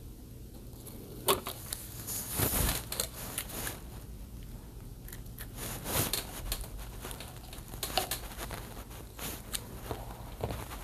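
Tape being torn and pressed over the pins of a TV panel's connector, with irregular crinkling, rustling and small clicks. The sharpest click comes about a second in.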